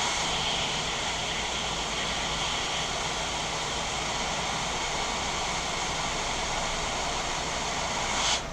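Hot air rework station blowing a steady hiss of air onto a laptop circuit board, which cuts off suddenly near the end.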